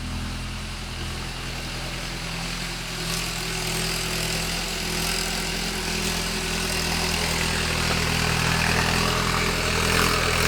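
Engine of a ploughing machine running steadily as it ploughs a field, growing gradually louder.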